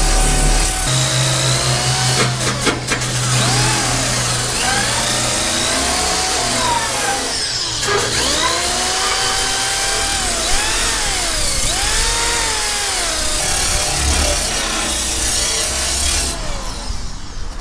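Corded electric drill spinning a wire brush wheel against a rusty steel fuel tank, scrubbing off rust. The drill's whine rises and falls in pitch as the wheel bears down and eases off, and it stops about a second before the end.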